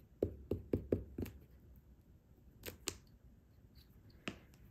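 Small glue stick rubbed across the back of a paper label in about five quick strokes, followed by two sharp clicks close together and one more click near the end.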